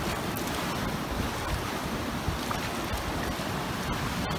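Surf breaking and washing up and back over the sand at the water's edge, a steady rushing wash, with wind noise on the microphone.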